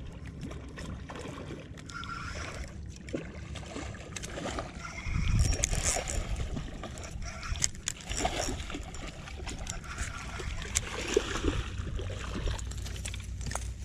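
A hooked fish splashing in shallow water as it is reeled in to a muddy marsh bank, with wind gusting on the microphone about five seconds in.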